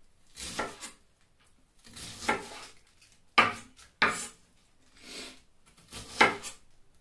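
Chef's knife slicing through a head of cabbage onto a wooden cutting board: about six separate cutting strokes at irregular intervals, roughly a second apart.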